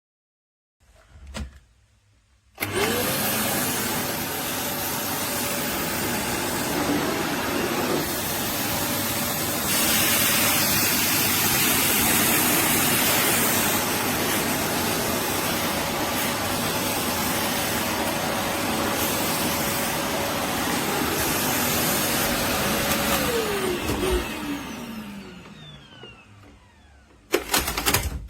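Eureka WhirlWind bagless canister vacuum cleaner. It starts up with a quickly rising whine, then runs steadily with a loud airy rush and a high motor tone. Near the end it is switched off and the whine falls away as the motor winds down, followed by a couple of sharp knocks.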